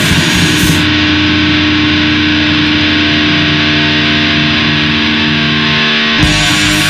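Black metal: heavily distorted electric guitar holding sustained chords. The drums and cymbals drop out about a second in, and the full band comes back in near the end.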